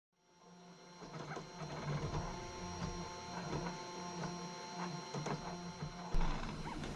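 3D printer's stepper motors whining as the print head and bed move, the pitch shifting in steps, with scattered light ticks. A sharp knock about six seconds in.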